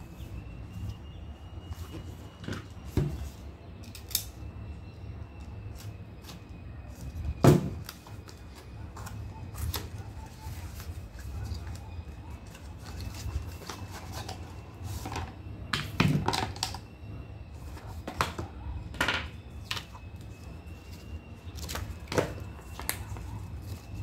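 Cardboard packaging and paper leaflets being handled: scattered taps, knocks and rustles as a small product box is opened and its inner box and papers are taken out, the loudest knock about seven and a half seconds in. A faint steady high-pitched whine runs underneath.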